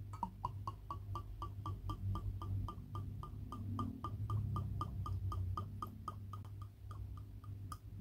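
Banana wine glugging out of a narrow-necked glass bottle into a wine glass: a steady run of short pitched glugs, about five a second, each one an air bubble entering the bottle.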